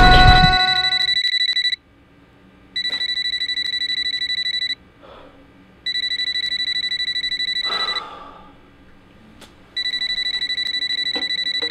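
Rapid electronic beeping, a high two-tone alarm pulse, comes in four bursts of about two seconds each with short pauses between, and stops near the end.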